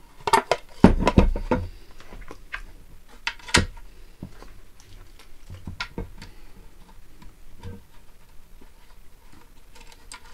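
Knocks and clicks of a plastic project box and a metal support bracket handled on a wooden table while a screw, washers and a nut are fitted to join them. A cluster of knocks comes in the first couple of seconds, single sharper knocks about three and a half and six seconds in, then light scattered ticks.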